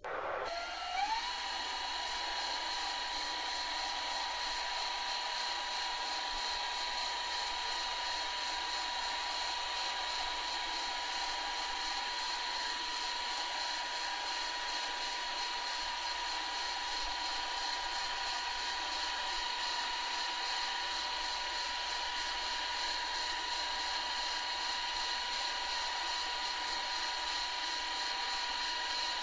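Television static: a steady hiss with a steady high whine that glides up into place about a second in.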